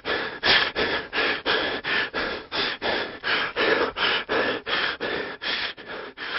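A home-made foley sound: a steady run of short noisy pulses, about four a second.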